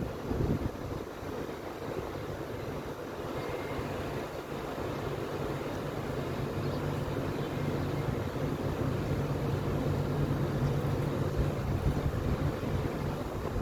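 Wind rumbling and buffeting on the microphone in a sandstorm, with a steady low hum underneath that grows a little louder in the second half.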